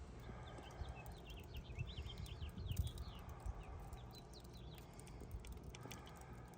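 Small birds chirping, a flurry of quick falling chirps in the first half, over a low steady rumble.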